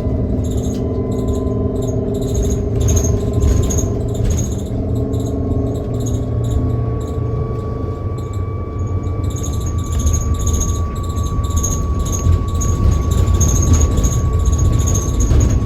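Cabin sound of a New Flyer XT60 trolleybus under way: the Skoda electric traction motor and its Kiepe drive give a thin steady whine that climbs slightly in pitch after a few seconds and then holds, over a low rumble of road and body with a few light knocks and rattles.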